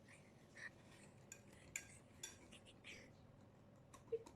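Faint, scattered clinks and taps of a kitchen utensil against a mixing bowl holding cake batter, with one slightly louder tap near the end.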